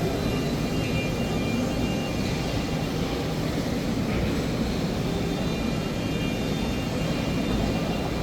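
Steady mechanical running noise of a FANUC Robodrill CNC machining center at work, a constant hum and rush with a few faint high tones.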